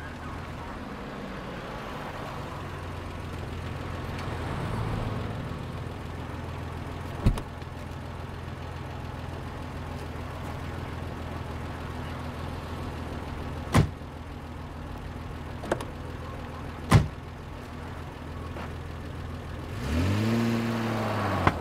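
A vehicle engine running with a steady low hum, broken by a few sharp single knocks. Near the end a louder pitched sound rises and then falls.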